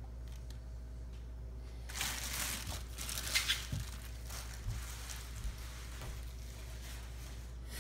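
Plastic packaging crinkling and rustling as it is handled, loudest from about two to four seconds in, followed by a few light knocks.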